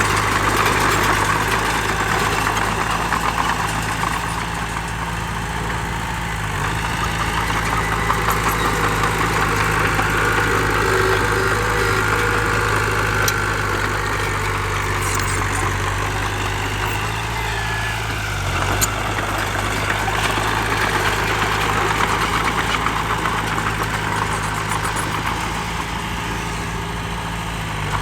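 Diesel engine of heavy earthmoving machinery running steadily, with its load rising and easing every few seconds.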